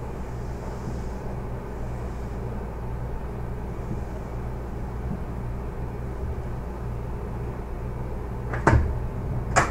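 Steady low hum of a Sapporo Municipal Subway 9000 series car's onboard equipment while it stands at the terminus. Two sharp knocks come near the end, about a second apart.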